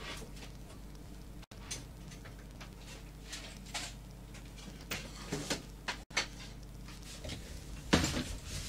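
Scattered faint clicks and rustles of things being handled and rummaged through, with a louder scrape about eight seconds in, over a low steady hum.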